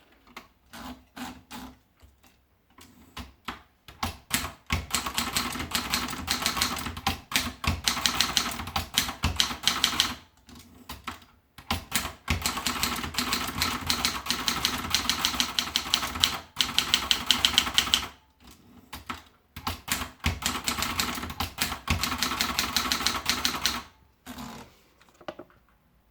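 Adler Tippa portable typewriter being typed on: a few scattered keystrokes at first, then three runs of fast typing, each several seconds long, separated by short pauses.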